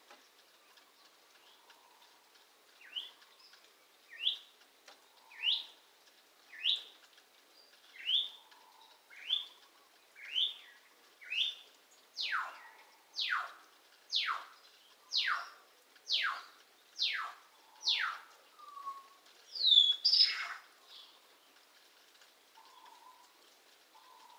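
Pet bird calling over and over, about one call a second: short rising calls at first, then longer calls that slide steeply down in pitch, and a louder, more ragged call near the end.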